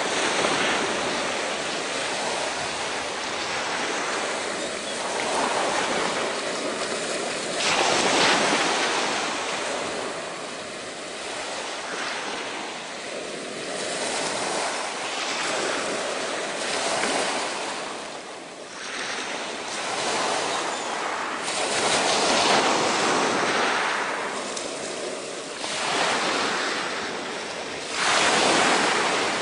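Sea waves breaking on a shingle beach, swelling and falling back every few seconds, with a sharper, louder breaker about a quarter of the way in and another near the end.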